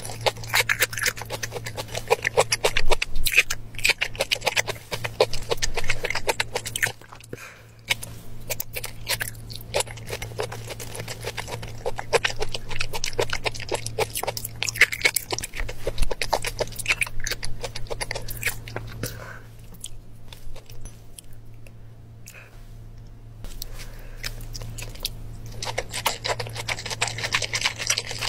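Close-miked mouth sounds of a person chewing and eating, made up of many quick clicks. A steady low hum runs underneath.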